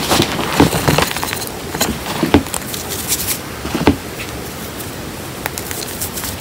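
Hands crushing and crumbling reformed gym chalk and cornstarch powder in a bowl: irregular soft crunches and powdery crackles, thinning out after about four seconds.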